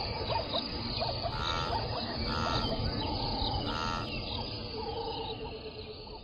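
Outdoor wildlife ambience of birds, insects and frogs calling together, with one repeated pitched call sounding three times about a second apart; the whole bed fades out near the end.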